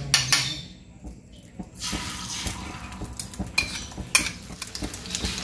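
A metal spoon clinking against a ceramic bowl of beaten egg. From about two seconds in, hot oil sizzles steadily as the egg is poured into the frying pan, with a few more clinks.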